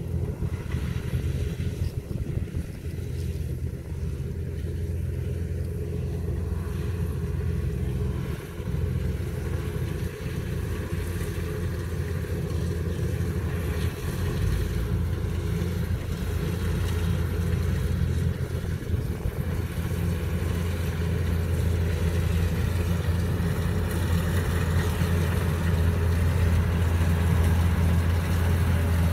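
Kubota DC-105X rice combine harvester running steadily while cutting and threshing rice: a diesel engine and threshing machinery giving a deep, even hum that grows louder as the machine comes closer.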